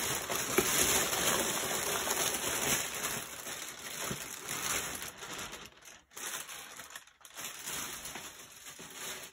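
Plastic mailing bag rustling and crinkling as cardboard boxes are slid out of it and handled, with two brief pauses about six and seven seconds in.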